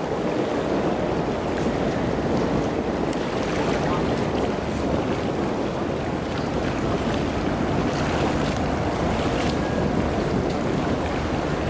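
Steady rush of water and wind on the microphone, with a ship's engine running low underneath.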